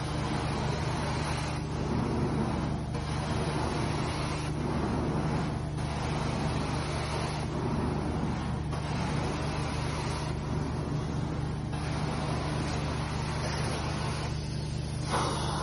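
Carpet-cleaning extraction machine running with a steady low hum while the wand's vacuum draws air and water through the carpet with a strong hiss. The hiss dips briefly about every one and a half seconds as the wand is worked back and forth in strokes.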